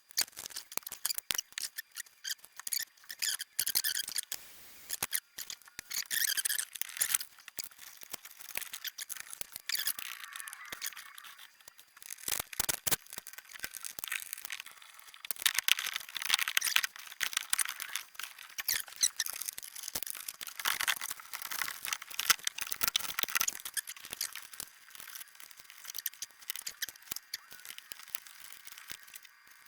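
Close-up hand work on electrical wire: a dense run of irregular snips, clicks and scraping from wire cutters or strippers and connectors being handled, as connectors are changed on an auxiliary power wire.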